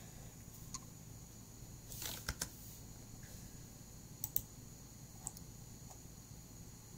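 A few scattered clicks and taps from a computer keyboard and mouse, with a faint steady hum between them.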